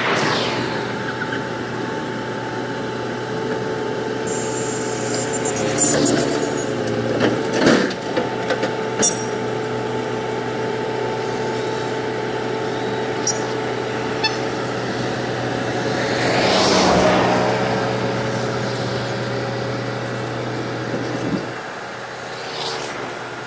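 Volvo crawler excavator's diesel engine running steadily under load as it climbs onto a truck's flatbed, with sharp metal clanks of the steel tracks and bucket several times about a quarter of the way in. A hiss swells and fades about two thirds of the way in, and the engine note drops away near the end.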